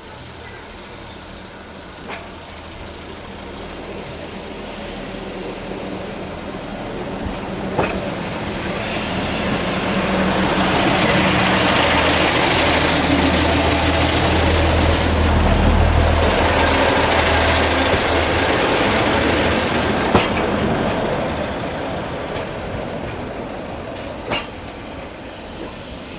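Pacer diesel railbus passing close by on the adjacent track: its engine drone and wheel noise build to a peak a little past halfway, then fade away, with scattered sharp clicks of wheels over rail joints.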